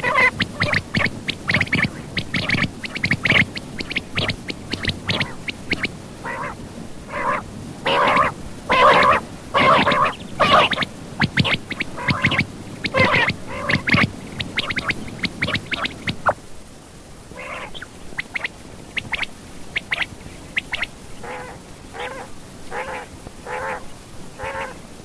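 Quail calling over and over in short, rapid repeated notes. About 16 seconds in, the background noise drops and the calls become quieter and more evenly spaced.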